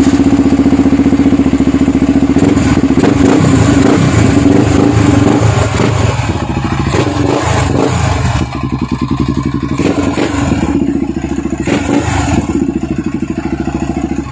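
Yamaha TT-R250's single-cylinder four-stroke engine running close by, steady and loud, cutting off suddenly at the end.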